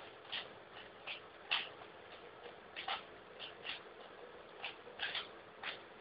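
Rubik's Cube being turned quickly by hand: irregular, quick plastic clicks of the layers snapping round, about a dozen in a few seconds.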